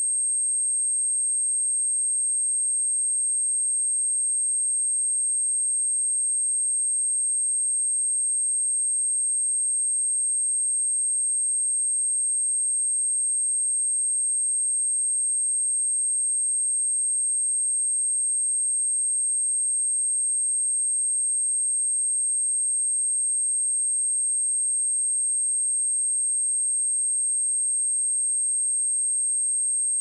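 Pure 8442 Hz sine-wave test tone, a single high-pitched steady whistle at constant level, played as a speaker test and speaker-cleaning tone.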